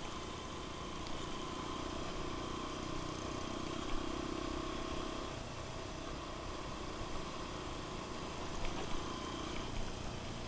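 Suzuki DR single-cylinder four-stroke enduro motorcycle engine running at a steady cruise on a dirt track, heard close up from the handlebars. Its note changes briefly about five seconds in, then settles again.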